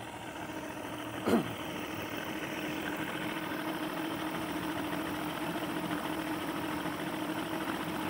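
1988 Evinrude 150 XP CrossFlow V6 two-stroke outboard idling steadily and pretty smoothly, warmed up, with timing and throttle set slightly up, even though two of its cylinders have low compression. About a second in there is one brief, loud sound that falls in pitch.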